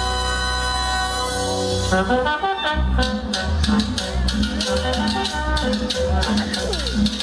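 Salsa music played loud over a dance sound system. A horn section holds a chord for about two seconds, then the percussion and bass come in with a steady, quick beat.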